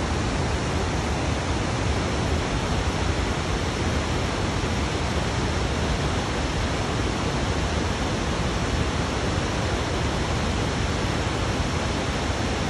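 Waterfall rushing: a steady, unbroken wash of falling water.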